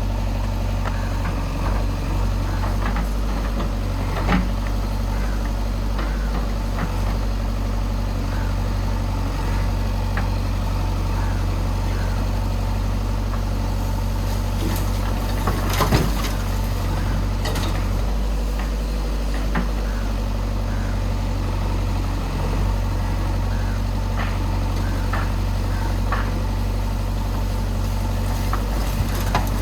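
JCB backhoe loader's diesel engine running steadily, with a few sharp knocks from the machine at work, the loudest about sixteen seconds in.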